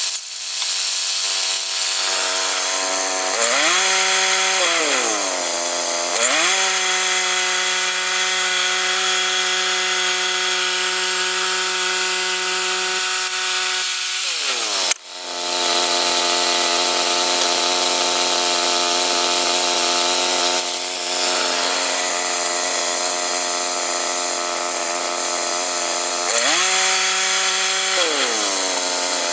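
Two-stroke chainsaw cutting pine at high revs, its engine note shifting up and down as it works. About halfway through the revs dip sharply and the sound drops for a moment before the saw picks back up.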